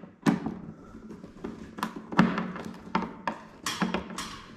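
Screws being driven with a hand screwdriver to fasten the plastic visor of an emergency light fitting: a run of irregular clicks and knocks from the screwdriver and the fitting.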